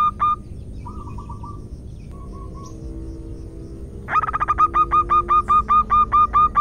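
Zebra dove giving a rapid run of short, clipped, evenly spaced notes, about five a second. The run stops just after the start, a few faint notes follow, and a louder run begins about four seconds in and carries on. It is given as a female zebra dove's call inviting a male to mate.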